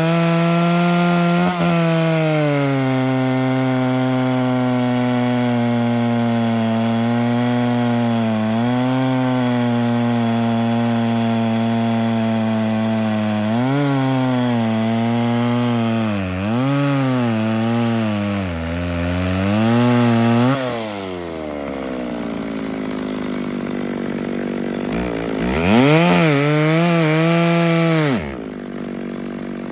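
McCulloch Pro Mac two-stroke chainsaw cutting through a large log at full throttle, its engine pitch dropping as the chain takes the wood. Past the middle the pitch dips and recovers several times under the load, then the throttle is let off and the engine winds down, revs once more briefly, and settles to idle near the end.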